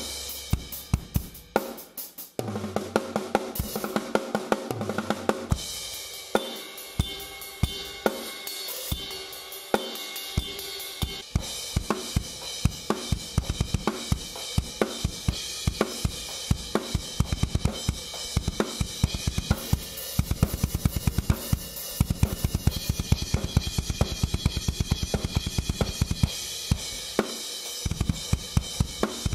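Acoustic drum kit played with sticks: a steady groove of snare, bass drum and cymbal hits that gets busier about twelve seconds in.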